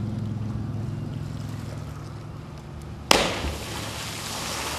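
A jumper's body hitting the water from a high bridge: one sudden loud splash about three seconds in, followed by the hiss of spray and churning water. Before the splash, a low engine-like hum fades away.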